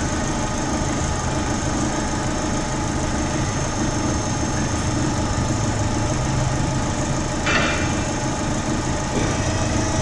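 The 2007 Holden Astra AH's 1.8-litre four-cylinder petrol engine idling steadily at about 780 rpm, with a lean fault (P0170, fuel system lean) logged from a vacuum leak. A short noise breaks in about seven and a half seconds in.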